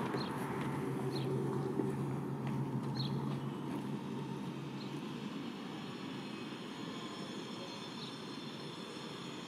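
Street traffic ambience: a passing vehicle's rumble and hum fade over the first few seconds, leaving a quieter steady background. A few short, high bird chirps come through now and then.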